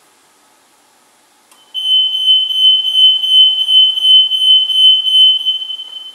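A click, then a loud, high-pitched electronic buzzer from the steam tube oven's control panel sounds for about four seconds as one steady tone that swells two or three times a second, stopping right at the end.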